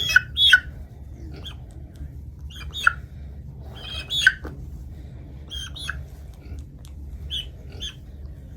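Hen making short, sharp squawking calls in small clusters of two or three, close to the microphone.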